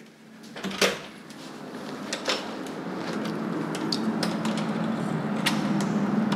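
Hotel room door being opened and let close: a sharp latch click about a second in, then further clicks and knocks from the handle and door, over a steady hum that grows louder.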